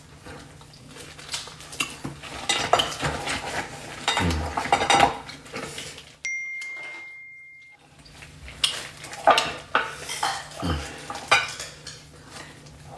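Cutlery and dishes clinking and scraping, with many short sharp clicks, as someone eats from a plate. About six seconds in, the sound cuts out for a second and a half, leaving only a faint steady high tone.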